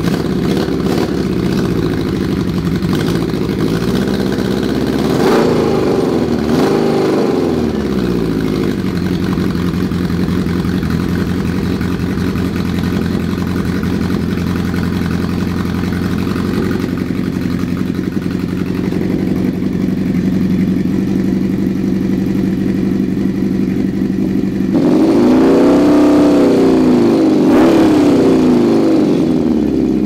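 Honda CB750's air-cooled inline-four running on a stand with fiberglass-wrapped baffle inserts in its exhaust: a steady idle, with the throttle blipped up and back down about five seconds in and again near the end.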